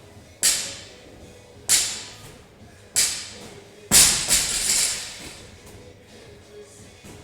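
Gym equipment hitting hard in a steady rhythm during a workout: four sharp thuds about a second and a quarter apart. The fourth, about four seconds in, is the loudest and rings on for about a second, and then the hits stop.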